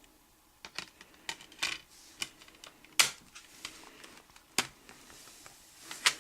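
Irregular sharp plastic clicks and taps from a Blu-ray case and its discs being handled. The two loudest clicks come about three seconds in and a second and a half later.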